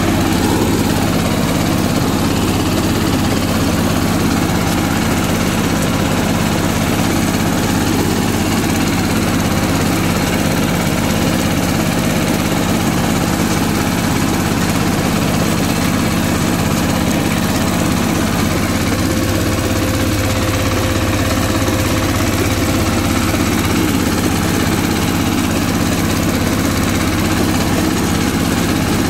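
Two-wheel walking tractor's single-cylinder diesel engine running steadily.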